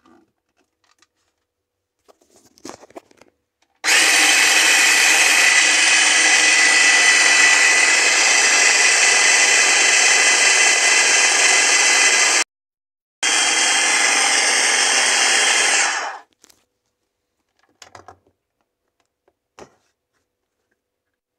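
Electric mini food chopper motor running steadily while puréeing chickpeas into hummus. It starts about four seconds in and runs for about eight seconds, stops briefly, then runs again for about three seconds and winds down. There are a few light clicks of handling before and after.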